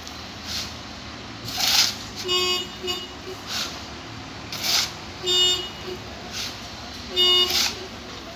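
Dump truck reversing slowly over a low engine rumble, its reverse horn sounding about four short tooting notes while short hisses of air come every second or two.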